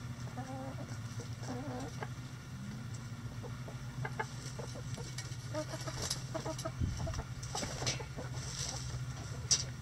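A flock of backyard hens clucking softly while they peck and scratch in dry litter, making short sharp clicks and rustles that grow busier in the second half. One click near the end is louder than the rest. A steady low hum runs underneath.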